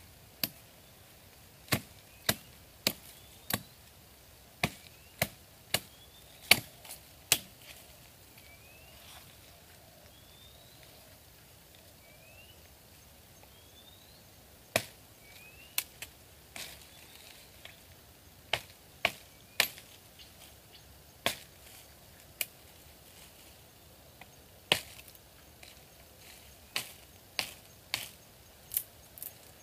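A blade chopping into wood: sharp single strikes in small runs of two to five about half a second apart, with pauses between runs. Faint short rising chirps come and go in the background during the first half.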